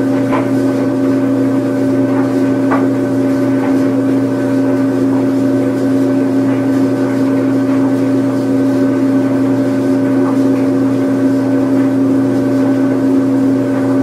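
Washing machine running its spin cycle: a steady hum with a strong constant motor tone, and a few faint light knocks over it.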